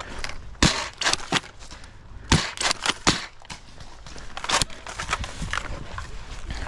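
Foam-dart Nerf blasters firing during a game: a string of about seven sharp, irregular snaps, with a steady outdoor rustle underneath.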